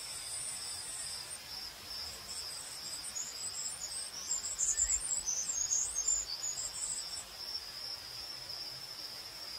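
Crickets chirping: a steady high trill runs throughout. A second, higher pulsing chirp joins it from about two seconds in until about seven seconds.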